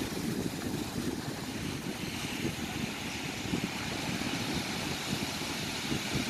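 Wind buffeting the microphone outdoors: a steady, fluttering low rumble with a faint hiss above it.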